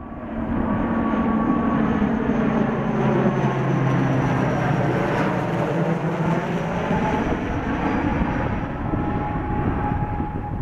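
ATR 72-500 twin turboprop airliner flying low overhead on landing approach: a steady propeller and engine drone with strong low tones that drop in pitch as it passes directly overhead about halfway through.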